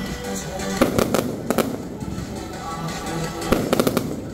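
Aerial fireworks from an electronically fired display: sharp bangs and crackling bursts, in a cluster about a second in and another near the end.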